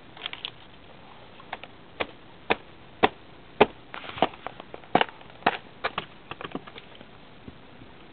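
Climbing in a willow tree: an irregular run of sharp clicks and snaps from twigs and bark under hands and feet, loudest around the middle, then thinning out near the end.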